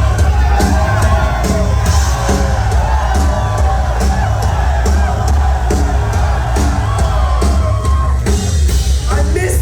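Rock band playing live: a drum kit drives a steady beat under heavy bass and guitars.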